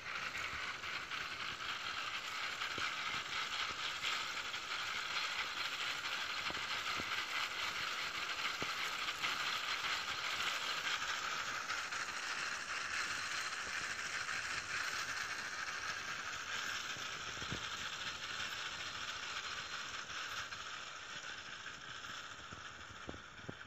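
Tractor-drawn reaper binder working through a standing crop, its mechanism clattering and rattling steadily with many small clicks. The sound fades somewhat near the end as the machine pulls away.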